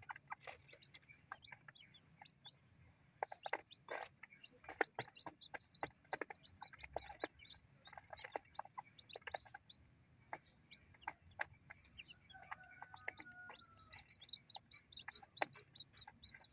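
Day-old chicks peeping in short high cheeps while they and the mother hen peck grain off a cardboard sheet, their beaks tapping sharply on the cardboard. About twelve seconds in, the hen gives a lower drawn-out call lasting about two seconds.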